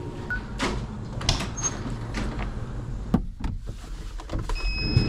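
Clunks and rattles of a vehicle door and its latch being worked, over a low background hum, with a steady high electronic tone starting near the end.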